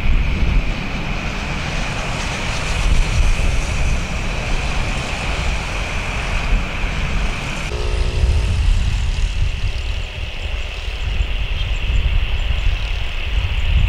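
Boeing 737-800 jet engines heard from beside the runway: a steady low rumble with a high whine over it. The sound shifts abruptly about eight seconds in, from an airliner rolling out after landing to another on final approach.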